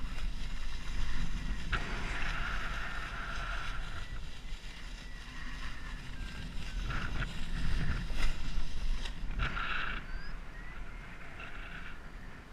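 Airflow rushing over the microphone of a paraglider circling in a strong thermal. Above it a high electronic tone comes and goes in patches and rises in pitch at times: a variometer signalling a strong climb.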